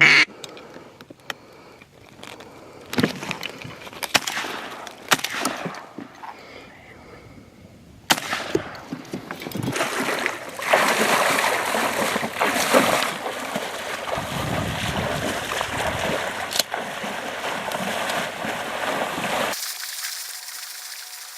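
Marsh water splashing and sloshing: scattered splashes for the first several seconds, then a continuous splashing rush from about eight seconds in that stops abruptly near the end.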